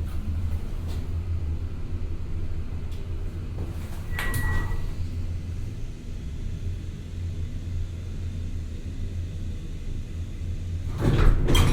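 Elevator machinery running with a steady low rumble. A brief high tone sounds about four seconds in, and a louder rush of noise starts near the end.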